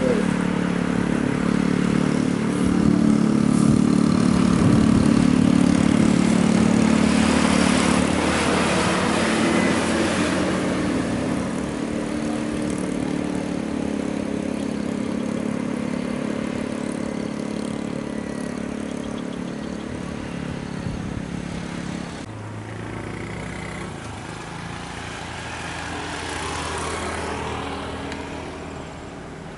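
Intercity coach's diesel engine running as the bus passes, loudest a few seconds in and then slowly fading away. About two-thirds of the way through the engine note changes to a lower, weaker one as another vehicle goes by, swelling briefly near the end.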